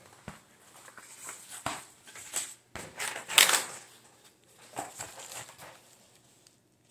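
Cardboard packing and bubble wrap being handled: scattered rustles, scrapes and light knocks, with one louder rustle about halfway through.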